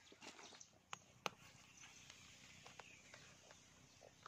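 Faint rustles and light clicks of footsteps on dry fallen leaves and a woven bamboo basket being handled and set down, with one sharp click just over a second in.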